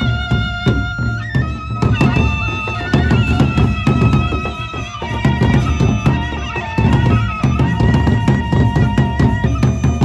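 Lombok gendang beleq ensemble playing: large barrel drums beaten with sticks in a dense, fast rhythm, with clashing hand cymbals and a held melody line that changes pitch a few times.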